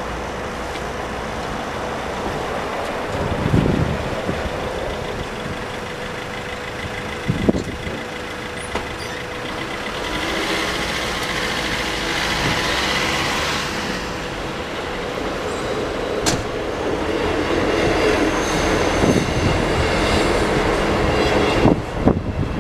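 Road vehicle engines running as a steady rumble, with a van driving past close by about halfway through. Two short low thumps come earlier on.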